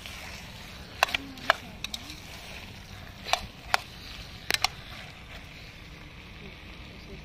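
A metal spoon clinking and scraping against the sides of an aluminium pressure cooker pot while chicken curry masala is stirred, about eight sharp clinks in small clusters, over a steady background hiss.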